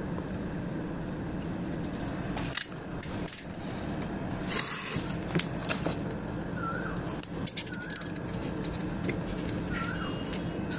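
Light handling noises of small craft parts, plastic wheels, wires and cardboard: scattered clicks and a brief rustle about halfway through, over a steady background hum. A few short chirps come in the second half.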